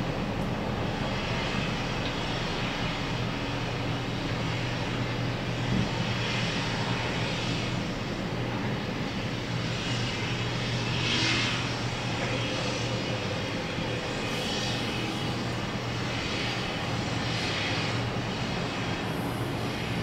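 Steady drone of construction-site machinery running, a constant low hum under a wide hiss. A single knock comes about six seconds in, and a brief swelling hiss about halfway through.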